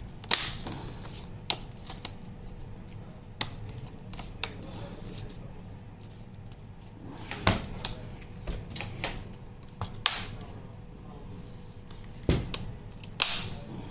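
Irregular sharp clicks and light knocks, about a dozen spread through, of a Lenovo ThinkPad T14 Gen 3's back panel being pressed down so its internal locks click into place and its screws fitted.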